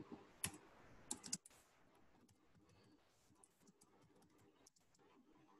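Faint computer keyboard typing: a few key clicks in the first second and a half, then fainter scattered taps.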